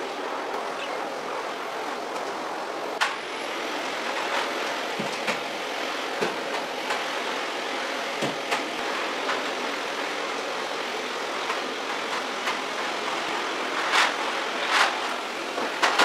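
Bagless canister vacuum cleaner running steadily as its floor head is pushed over a rug and a tiled floor. Scattered sharp clicks and knocks sound over the motor, the loudest near the end, and a thin high whine joins about three seconds in.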